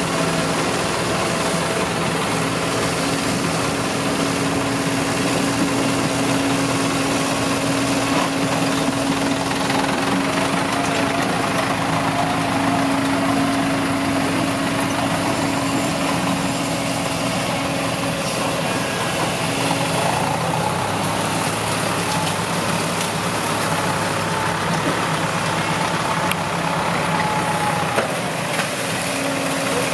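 Kobelco SK140 crawler excavator's diesel engine running steadily as the machine works, with a higher whine wavering above the engine note through the second half.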